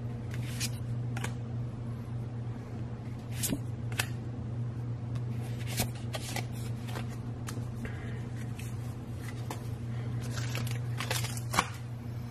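Pokémon trading cards being handled and slid against one another: a scatter of short papery flicks and clicks over a steady low hum.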